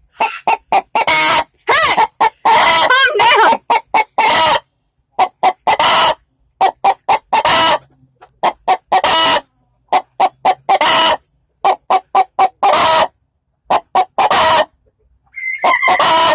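A hen cackling in agitation: quick runs of short clucks, each ending in a longer, loud squawk, again and again. To her owner the hen sounds angry.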